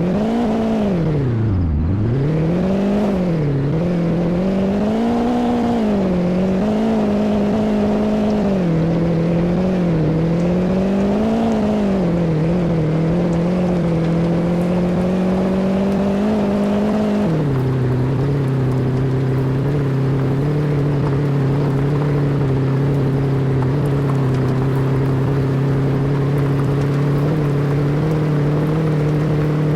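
An engine running, its pitch rising and falling repeatedly as the throttle changes. About two-thirds of the way through it drops suddenly to a lower, steady pitch.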